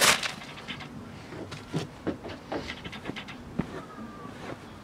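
A sharp knock right at the start, then a run of short scrapes and knocks from a knife, a slashed fabric hoodie and paper sheets being handled on a tabletop.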